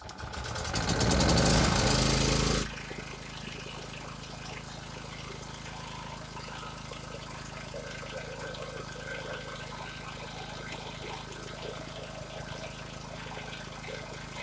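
A Master GB 3900 E petrol generator's engine being started: a loud burst of starting that cuts off sharply about two and a half seconds in, after which the engine runs steadily.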